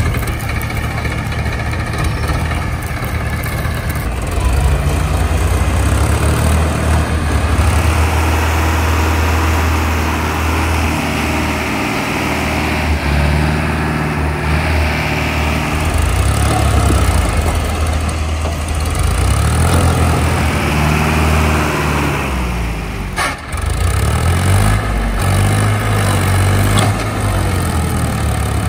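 Powertrac tractor's diesel engine running hard, its pitch rising and falling as it revs. It is straining to drag a Hydra crane that is stuck in mud, with its rear wheels spinning.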